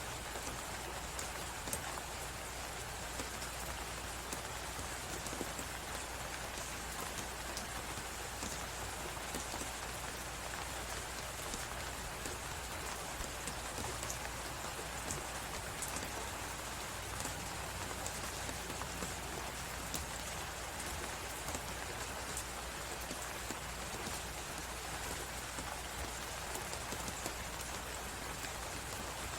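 Steady hiss of blizzard wind and snow, mixed with the light crackle of a wood fire giving many small pops throughout.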